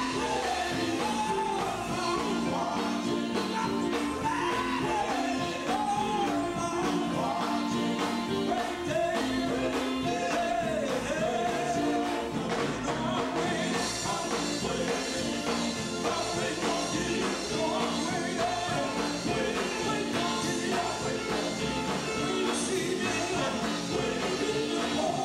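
Live gospel quartet music: a lead vocal over electric guitars, bass and drums. The sung line stands out most in the first half, with brighter, busier playing after the middle.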